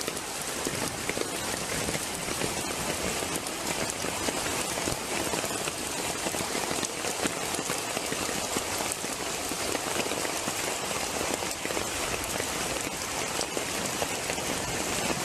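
Steady hiss of heavy rain mixed with floodwater rushing and churning in over a doorstep.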